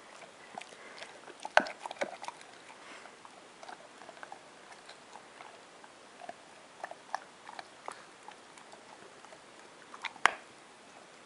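Bluetick coonhound chewing, with scattered small mouth clicks and two louder clicks, one about a second and a half in and one near the end.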